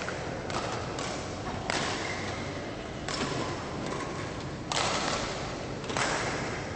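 Badminton rackets striking shuttlecocks with sharp thuds and swishes, over the constant echoing hum of a busy sports hall.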